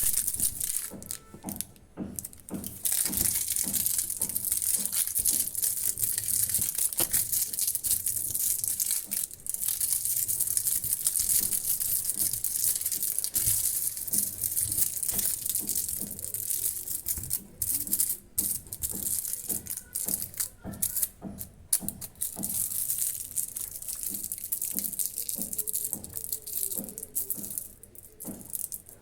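Crunchy toffee crunching: a dense, continuous crackle with many sharp clicks, dipping briefly about two seconds in.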